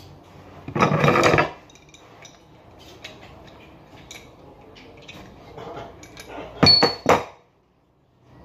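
Metal handling of an old chrome faucet and a wrench. A loud burst of metallic rattling and scraping comes about a second in, with small clicks and taps after it, then two or three sharp metal clinks near the end, one with a brief ring.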